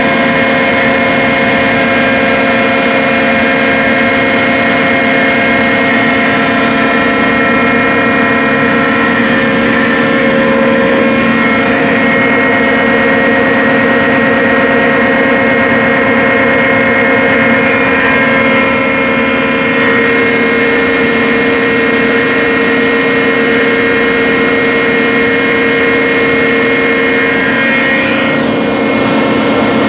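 Core drilling rig running steadily, a loud machine drone with a strong, even hum that shifts slightly in pitch a couple of times.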